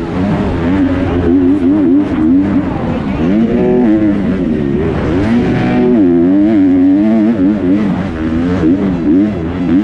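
Kawasaki KX250F motocross bike's four-stroke single-cylinder engine revving hard, its pitch rising and falling over and over as the rider accelerates, shifts and rolls off through the track's corners and jumps, with a steady rushing hiss under it.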